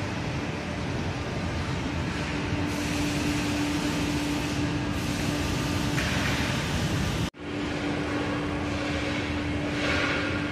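1988 Aschersleben guideway grinding machine running, its grinding head working along a machine bed's guideways. It makes a steady hum with a constant tone under a shifting hiss of grinding. There is a brief dropout about seven seconds in.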